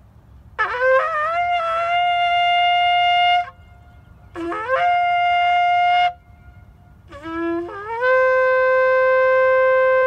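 Ram's horn shofar blown in three blasts, each starting low and sliding up into a steady held note. The first two settle on a higher note; the third, the longest, holds a lower note and is still sounding at the end.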